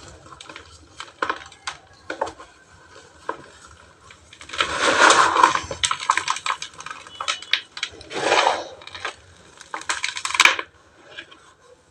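Dry chunks of pure cement and ash crumbling and crunching, with scattered small gritty clicks and three longer crunches, the loudest a little over four seconds in.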